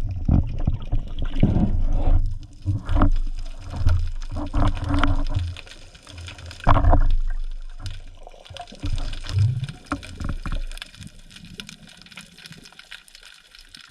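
Water sloshing and gurgling around an underwater camera in uneven surges, with a few knocks, fading down over the last few seconds.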